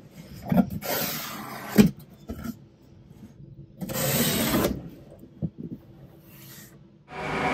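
Cardboard scraping and rubbing as a boxed Ouija board is slid out of a cardboard shipping box: two scrapes of about a second each, with a few small knocks between them. Music starts right at the end.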